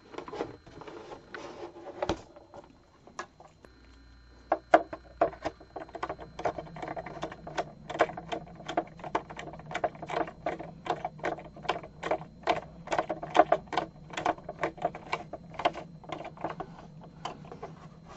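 Rapid clicking, about three clicks a second, as a small nut is run onto a threaded stud under a model boat's wooden deck with a hand nut driver, metal ticking against metal and wood. The clicks start sparse and settle into a steady run about four seconds in.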